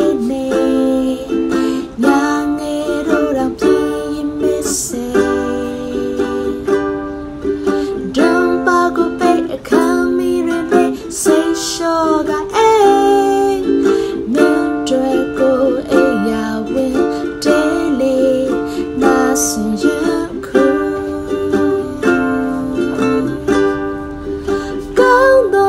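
A woman singing a Burmese song while strumming chords on a ukulele.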